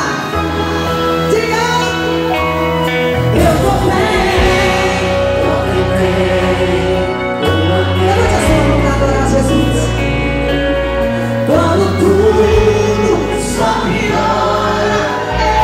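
Gospel song performed live, a woman singing into a microphone over an amplified band, with long held bass notes underneath.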